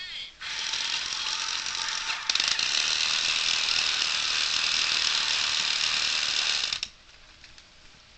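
A toy fighter jet's small electric motor running its plastic gears: a loud, rattling whirr that starts about half a second in, gets louder about two seconds in, and cuts off suddenly near the seven-second mark.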